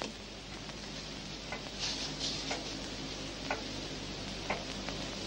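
A clock ticking about once a second over a low steady hum.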